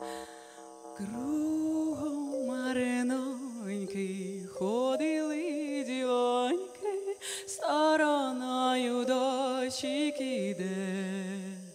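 A woman singing a slow, ornamented melody with wavering, vibrato notes over a steady held drone. The voice stops near the end, leaving the drone sounding.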